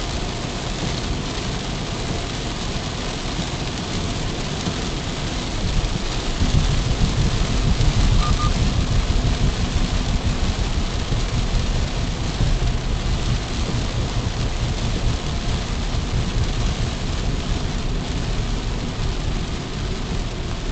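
Road noise inside a moving car's cabin on a wet road: a steady hiss of tyres on wet tarmac over a low rumble, getting louder about six seconds in.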